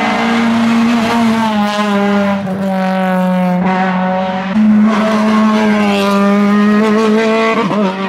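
Toyota hatchback hill-climb car's engine running hard at high revs as the car takes a hairpin and passes close by. The note holds nearly level, steps up in pitch about halfway through and dips briefly near the end.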